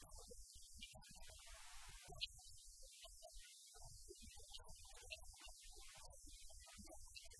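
Near silence: a faint, steady low hum with a thin hiss.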